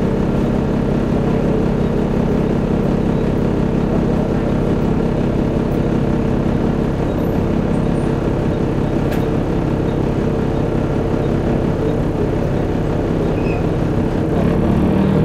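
Volvo B7TL double-deck bus's rear-mounted six-cylinder diesel running with a steady drone, heard from inside the lower deck. The note gets a little louder near the end.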